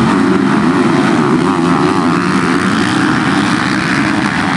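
A pack of motocross bikes revving hard together as they launch off the start line, many engines blending into one loud, wavering drone.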